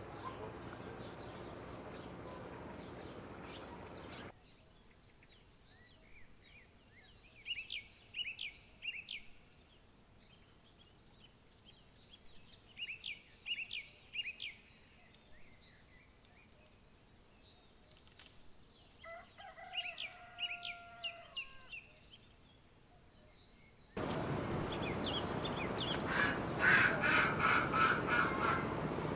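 Small songbirds chirping in short quick bursts every few seconds, with a lower, slower whistled call among them about two-thirds of the way through. Steady outdoor background noise comes in at the start and returns, louder, near the end, with a run of quick clicks.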